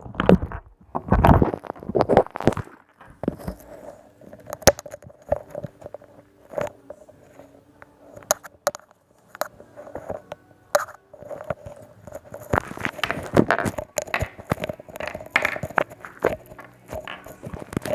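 Slime being squished and pressed, giving irregular sticky pops and clicks, thicker and busier in stretches near the start and about two-thirds of the way through.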